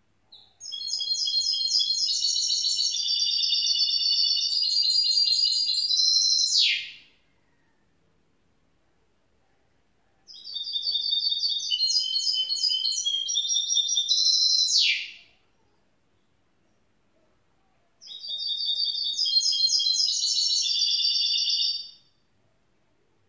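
Young goldfinch mule (a goldfinch hybrid) singing three song phrases of rapid, high twittering trills, each several seconds long with short pauses between. The first two phrases end in a quick falling note.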